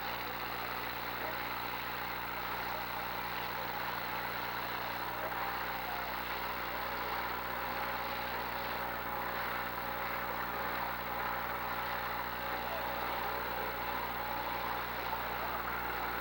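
Engines of demolition derby cars running steadily with no sharp crashes, as the last surviving cars keep moving around the arena.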